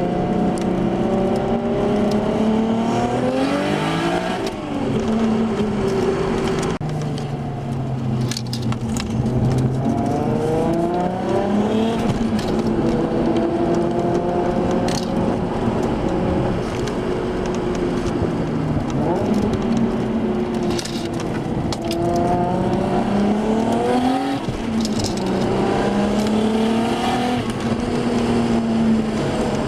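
Turbocharged Nissan Skyline straight-six engine pulling hard through the gears. Its note climbs in pitch and drops back sharply at each shift, several times over, with a steadier stretch in the middle. Short sharp crackles come through now and then.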